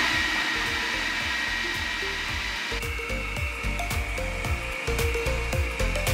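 Hamilton Beach food processor switched on and running steadily, its motor whining as it chops steamed cauliflower and garlic cloves into mash. The whine steps up a little in pitch about three seconds in.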